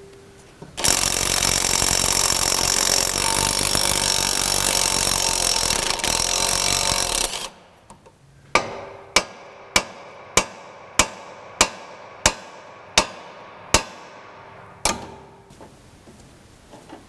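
An impact wrench runs steadily for about six seconds, spinning the nut off the outer tie rod end's stud. Then about ten sharp, ringing hammer blows on steel, one every two-thirds of a second, knock the tie rod end's tapered stud loose from the steering knuckle.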